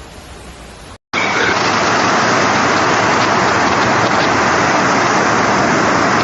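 A loud, steady rush of water, like a heavy downpour or floodwater pouring, starting abruptly about a second in after a fainter hiss.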